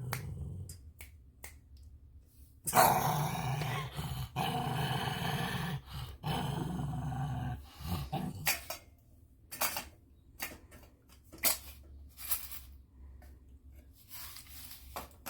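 Angry Havanese dog growling in long, loud stretches for about five seconds, with brief breaks between them. A scattering of sharp clicks follows.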